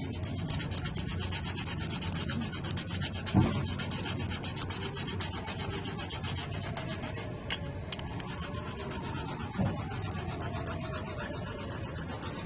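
Rapid, even sanding strokes, several a second, with a sharp knock about three and a half seconds in and another near ten seconds.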